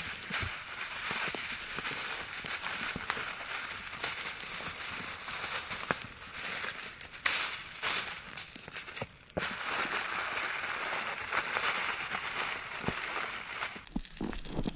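Aluminium foil crinkling as it is unrolled from the roll, then folded and crumpled by hand around a paper-wrapped package, with many small crackles; it stops suddenly near the end.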